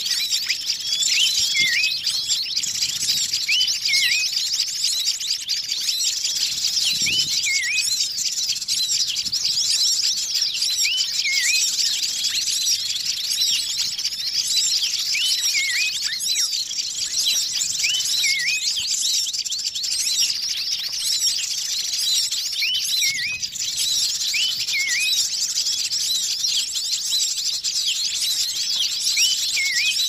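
Bird-lure recording of a noisy mixed chorus of many wild birds, a dense steady chatter of chirps and tweets. A short hooked call comes back every two to four seconds over it.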